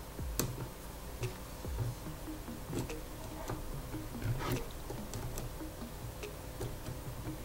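Scattered light clicks and taps of multimeter probe tips touching the terminals of the lithium-ion cells in a battery pack, as the cell voltages are measured one by one.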